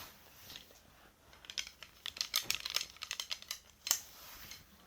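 Handling noises in a small room: a run of quick, light clicks and rustles, thickest in the middle, with one sharper click near the end.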